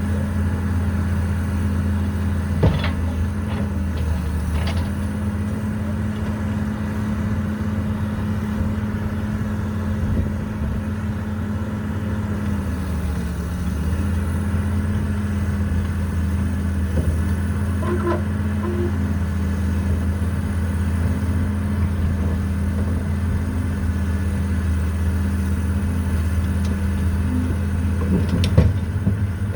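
Caterpillar 312B excavator's diesel engine running steadily, its pitch dipping briefly under load partway through, with a couple of sharp metallic clicks early on.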